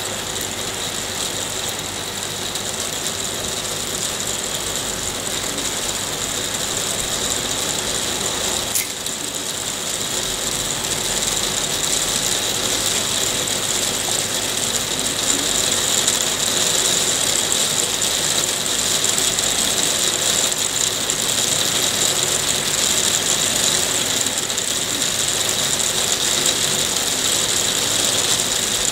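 Hail shower: a dense, steady rattle of many small hailstone impacts, growing somewhat louder from about a third of the way in, with one sharper click about nine seconds in.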